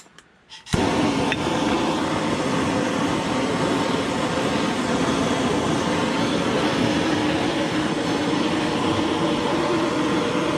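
Propane hand torch lighting about a second in, then its flame burning with a steady, loud rush as it scorches the carved wood surface.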